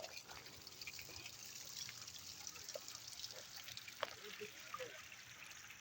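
Faint outdoor ambience: a soft, even trickling hiss with scattered small ticks and a few brief faint chirps.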